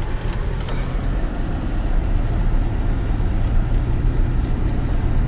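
Car driving on a road, heard from inside the cabin: a steady low drone of engine and tyre noise.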